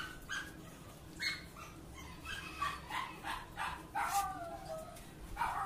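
A dog whining and yipping: several short high calls, one of them sliding down in pitch about four seconds in.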